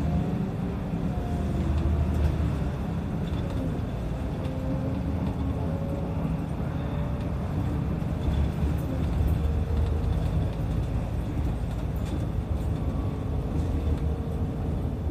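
Kanachu route bus running on the road, heard from inside the cabin: a steady engine rumble with a whine that rises and falls in pitch as the bus changes speed.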